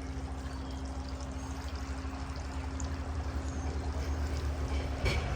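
Steady running water, pouring and splashing, with a brief knock near the end.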